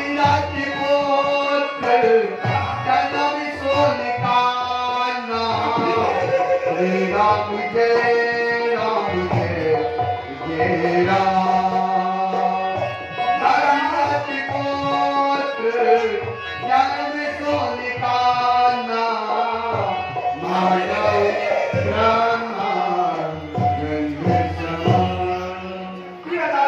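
Tabla playing under a held melody, the low drum's strokes bending up and down in pitch.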